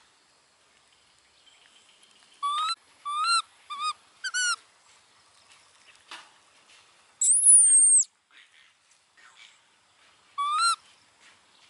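Baby macaque calling: a quick run of short, rising, squeaky coos, then one more near the end, with a single longer, much higher whistle about seven seconds in.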